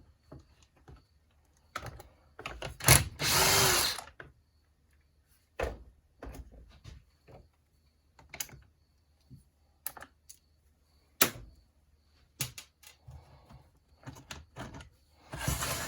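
A cordless power drill/driver runs in short spurts, the longest about three seconds in and another near the end, as the air box cover is taken off a Stihl 017 chainsaw. Sharp clicks and knocks of parts being handled come in between.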